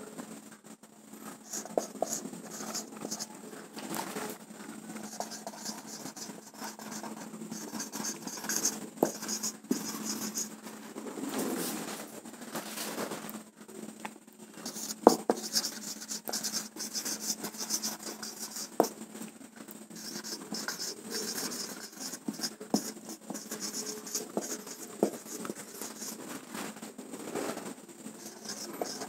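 Marker pen scratching and squeaking on a whiteboard as words are written, in short bursts separated by brief pauses, with a few sharp clicks. A faint steady hum runs underneath.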